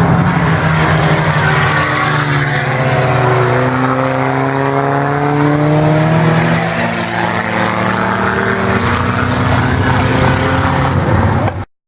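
Sport compact race cars' engines running hard at speed, their pitch climbing and falling as they pass. The sound cuts off abruptly near the end.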